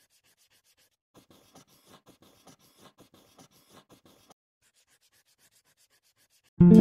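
Pen writing: a dozen or so faint, short scratching strokes over about three seconds as words are handwritten. Music starts suddenly right at the end.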